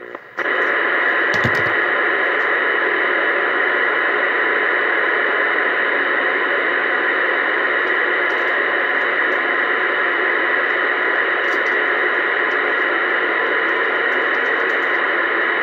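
Uniden Bearcat 980SSB CB radio on channel 19 AM giving a loud, steady static hiss through its speaker, cutting in abruptly about half a second in.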